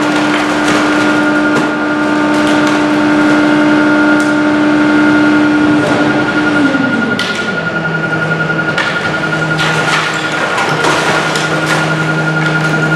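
Garbage truck engine running at raised speed to power the hydraulics while unloading, with a steady high whine; about seven seconds in the engine note drops in pitch as it eases back. Scattered knocks and clanks from the load and the metal body come through over it.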